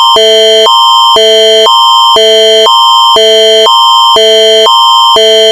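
Canadian Alert Ready emergency attention signal, very loud: two chords, one higher and one lower, alternate about every half second over a steady high tone.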